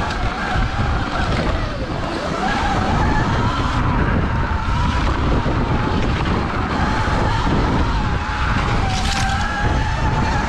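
Sur Ron electric dirt bike's motor whining as it rides a dirt trail, the pitch rising and falling with speed, over heavy wind rumble on the microphone and tyre noise. A brief rush of hiss comes near the end.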